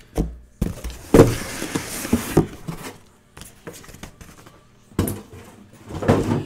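A sealed cardboard shipping case being handled and moved about on a table: knocks and thumps, with a longer scraping rub of cardboard starting about a second in and a cluster of knocks near the end.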